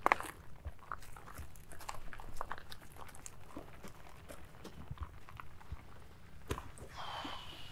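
Footsteps crunching irregularly on a dry dirt and gravel bush track. A thin whistle falling slowly in pitch starts near the end.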